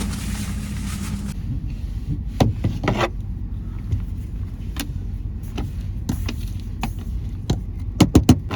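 Vehicle running, a steady low rumble with scattered clicks and knocks and a quick cluster of knocks near the end. A steady hum in the first second stops abruptly at a cut.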